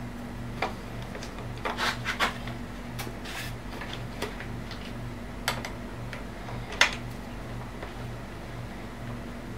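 Hand guard bracket and bar-end mount being fitted to a motorcycle handlebar: scattered small clicks and knocks of metal and plastic parts and a hex key, a quick cluster about two seconds in and the sharpest click about seven seconds in. Under it, a steady low hum that pulses about twice a second.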